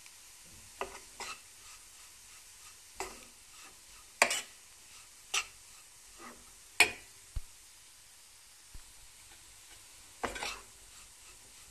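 A metal spoon stirring and scraping a dry, crumbly flour-and-butter mixture as it toasts in a stainless steel pot. The strokes come at irregular intervals, about nine in all, the loudest about four and seven seconds in.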